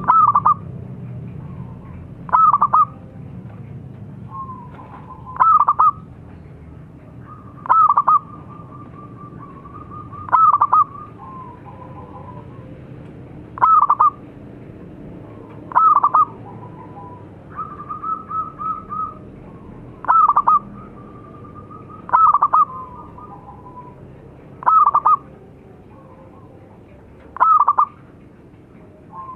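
Zebra doves cooing: a loud, short coo about every two and a half seconds, about a dozen times, with softer rolling, trilled coos in between.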